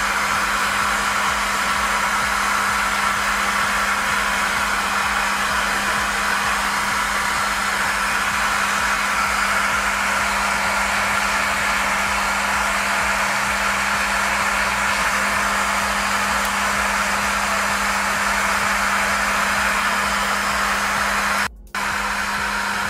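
Hair dryer running steadily: a continuous airy rush with a low, even hum underneath. It drops out for a moment near the end, then carries on.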